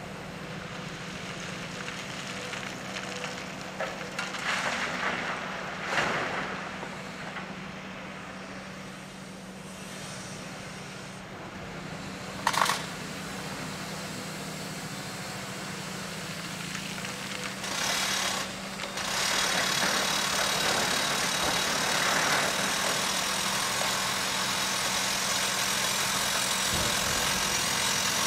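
Heavy diesel excavator engine and hydraulics working while digging and loading rock, with a steady engine hum, loose rock clattering and a sharp knock about halfway through. The machine noise grows louder and busier for the last third.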